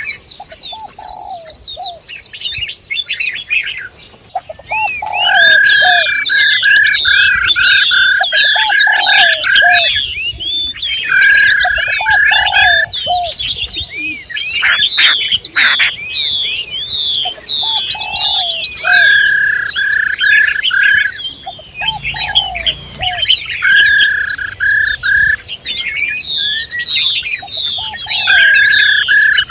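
Several songbirds chirping and calling together: dense high twittering over recurring trains of rapid, evenly repeated mid-pitched notes, with a few lower short notes between.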